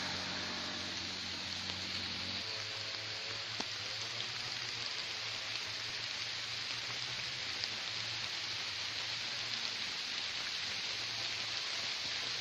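Steady hiss of rain falling on open rice paddies. A low engine drone fades out about two seconds in.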